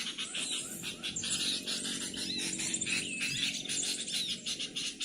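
Forest chorus of high, squeaky bird chirps repeating over a dense insect hiss.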